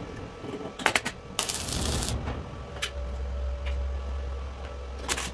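Electric arc welding: a few sharp clicks as the arc is struck about a second in, then a short burst of crackling hiss from the arc, with a low steady hum beneath from about a second and a half on. This is a plug weld filling two small holes to fuse a top plate to the one below.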